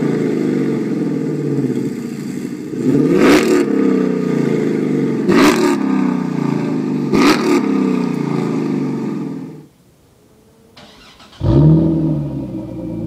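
Chrysler 300C's Hemi V8 idling through a Corsa cat-back exhaust, blipped three times, each rev rising sharply and falling back to idle; the sound cuts out about three-quarters of the way in. Near the end a Chrysler Concorde's V6 comes in loudly and settles into a steady idle through its dual-tip exhaust.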